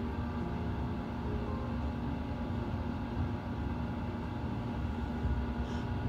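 Running noise of an E257 series electric train heard from inside the cab as it moves at low speed: a steady low rumble with a constant hum.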